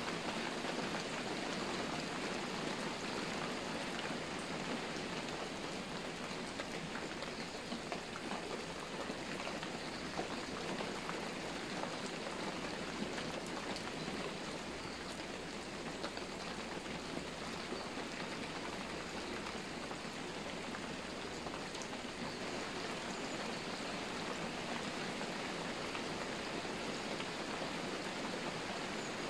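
Steady rain falling, an even hiss with fine patter of drops.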